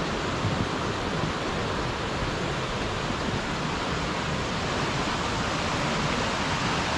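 Rushing water of a stream in flood: a steady, even rush.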